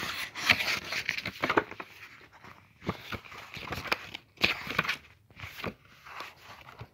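Irregular rustling, scraping and clicking handling noise: paper pages of a book and a hand-held phone being moved close to its microphone.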